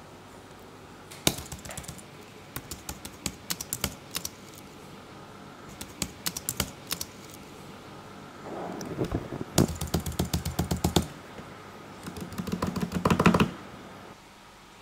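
Computer keyboard typing in several short runs of irregular keystrokes, with pauses between them.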